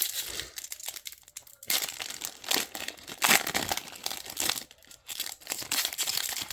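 Crinkling and rustling of trading cards and their packaging being handled, in irregular bursts.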